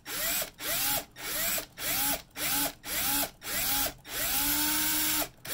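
Cordless drill boring a 2.5 mm hole through a soft brass flange, the trigger pulsed in about eight short bursts that each spin up and wind down, then held for a longer steady run near the end.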